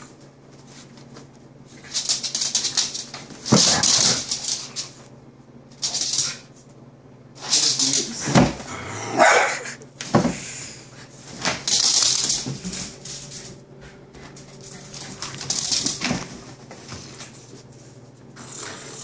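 Dog play during a tug-of-war over a hand-held toy: a few barks mixed with bursts of scuffling and rustling on a fabric chair, coming in four or five spells with short lulls between.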